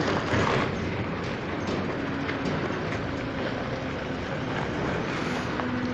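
An SUV driving slowly past on a dirt and gravel road: tyres on loose stones and the engine running, an even, noisy rumble.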